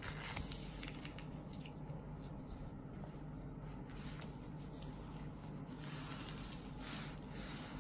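Rustling and rubbing as a cloth slogan banner with holographic glitter lettering is handled and slid out of its sleeve, in short scattered scrapes over a faint steady low hum.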